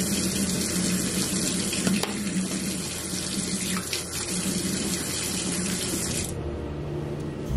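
Bathroom sink faucet running steadily into the basin as hands are washed under it. The rush of water thins out about six seconds in.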